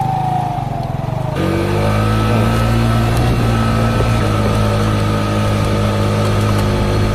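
Police car siren, its wail falling in pitch for about a second and a half before cutting off abruptly. A steady vehicle engine and road noise then run on.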